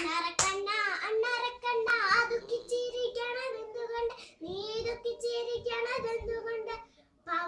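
A young girl singing, holding long steady notes, with a short break about four seconds in. A sharp tap sounds right at the start.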